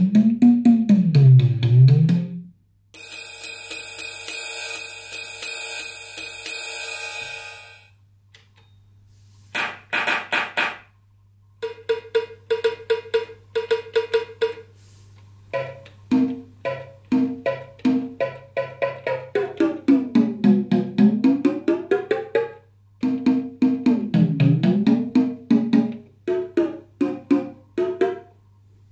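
LinnDrum drum machine playing its sampled drum sounds one at a time: drum hits repeated rapidly while a tuning knob is turned, so their pitch dips and rises again; a long bright ringing cymbal lasting several seconds; a few short bright hits; and a run of hits at one steady pitch.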